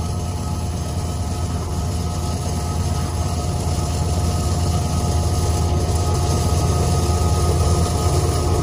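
Norfolk Southern diesel freight locomotive running under power alongside a pacing vehicle: a steady low engine drone with steady whining tones, growing slowly louder.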